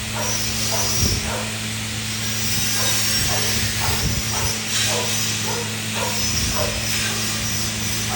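TIG welding arc on stainless steel, a steady hiss over a constant electrical hum from the welder. Short, falling calls repeat about twice a second in the background.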